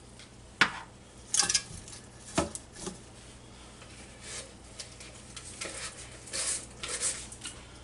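Raw seasoned chicken thighs being handled and laid into an air-fryer basket, with a few sharp clicks and knocks against the basket and bowl in the first three seconds, then soft rustling handling noise.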